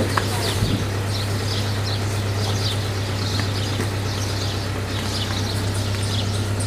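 An engine idling with a steady low hum, with many small birds chirping repeatedly over it. A couple of brief knocks sound near the start.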